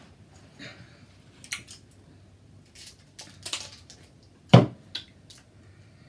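Hands working through a seafood boil: scattered clicks, cracks and wet squishes of shells and sauce-covered food being pulled apart. One sharp knock about four and a half seconds in is the loudest sound.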